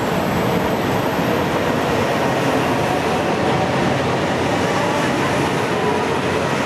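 A two-car diesel train, a KiHa 47 railcar coupled to a yellow KiHa 125, moving past along the platform with its diesel engines running steadily.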